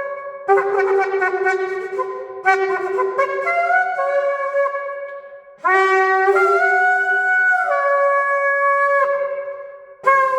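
Shofar (ram's horn) sounded in a run of blasts that step between several notes: two shorter blasts early on, a brief break, then a long held blast of about three and a half seconds that jumps in pitch partway through.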